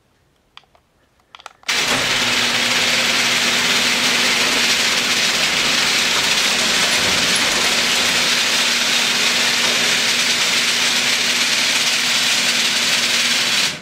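Garage door opener running as it moves the door, a steady mechanical noise with a low hum that starts suddenly after a couple of light clicks and stops abruptly about twelve seconds later. The door carries hanging water bottles as a test load standing in for the weight of added insulation.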